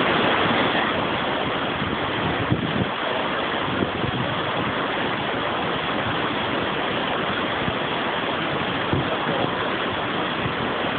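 Water pouring over a river weir, a steady rushing that holds an even level throughout.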